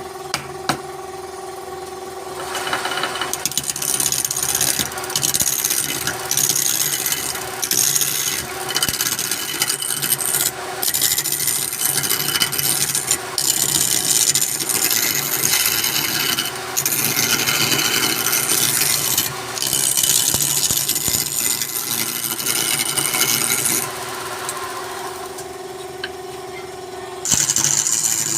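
Wood lathe running with a steady hum while a turning tool cuts the spinning wood in a long run of uneven scraping strokes. The cutting starts about two seconds in and stops for a few seconds near the end, leaving the lathe humming alone. It then starts again just before the end.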